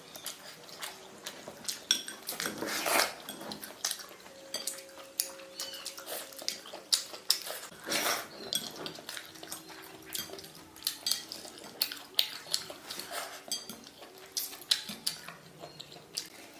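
Chopsticks and utensils clicking and clinking against a bowl and plate while eating, in many short, irregular taps. A faint drawn-out whine comes and goes in the background.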